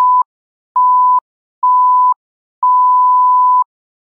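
Electronic beep sound effect: one steady high-pitched tone sounding in a series of beeps that each last longer than the one before, with a click as each starts and stops. The last beep lasts about a second.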